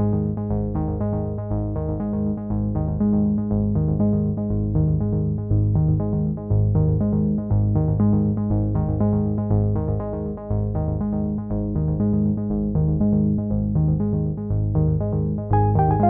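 Background electronic music: synthesizer and keyboard over a steady bass, with a regular beat.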